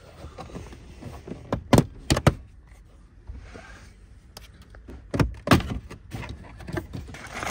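Sharp clacks and knocks of tools, bolts and plastic trim pieces being handled during dashboard disassembly: three close together about two seconds in and two more about five seconds in, with quieter handling noise between.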